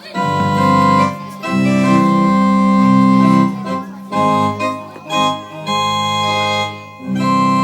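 Organ music playing held chords that change every second or two.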